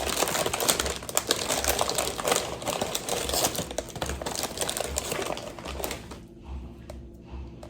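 Dense crisp crackling and crunching of a tortilla chip being handled and eaten close to the microphone, for about six seconds, then quieter.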